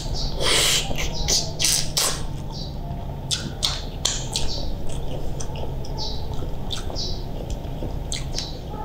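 Close mouth sounds of eating sauced seafood by hand: a steady string of short wet smacks, clicks and squeaky sucking sounds as he chews and licks sauce from his fingers.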